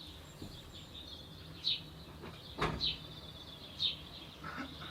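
A small bird chirping repeatedly in the background, one short high chirp roughly every second. There is a single sharp knock about halfway through.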